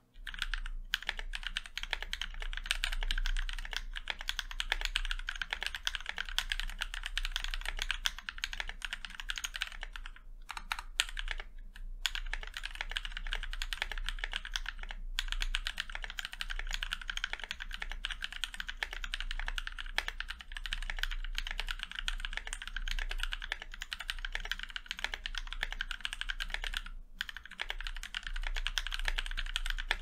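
Fast, continuous typing on a KBD67 gasket-mounted mechanical keyboard with NovelKeys Cream linear switches and Tai-Hao ABS keycaps: a rapid, even clatter of keystrokes with a few short pauses.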